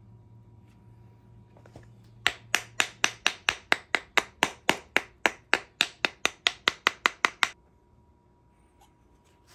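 Rapid sharp tapping on the carburetor, about four taps a second for roughly five seconds, knocking loose a float bowl stuck on with old varnish.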